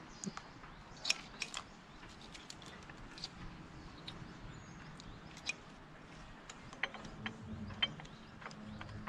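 Scattered, irregular metal clicks and clinks of hand tools and small parts being handled while removing car ignition coils.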